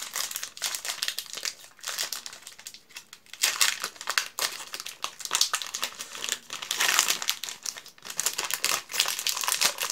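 Chocolate block wrapper crinkling and tearing as it is unwrapped by hand, in irregular bursts of rustling and crackling.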